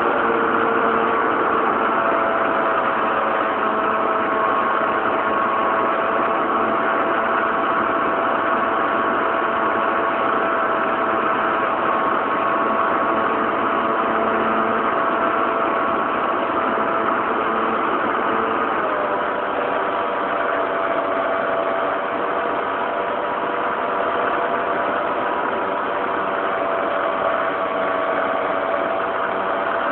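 Motor and propeller of a radio-controlled Cessna 182 model airplane in flight, heard from an onboard camera. It is a steady drone carrying several held tones, and the pitch shifts slightly about two-thirds of the way through.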